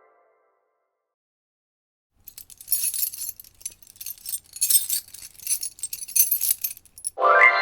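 Rapid jingling and clinking of small hard metal or glass objects, starting about two seconds in and running for about five seconds in irregular clusters.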